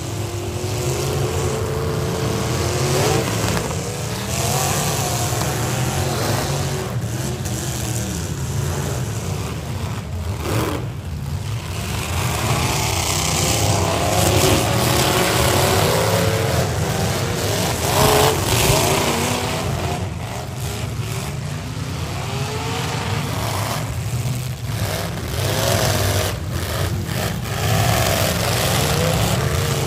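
Several economy-class V8 demolition derby cars running and revving hard together, their engine pitches rising and falling as they push and ram one another.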